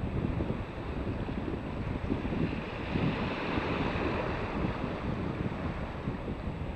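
Wind buffeting the microphone over the wash of small waves breaking on a beach, the surf hiss swelling briefly about three seconds in.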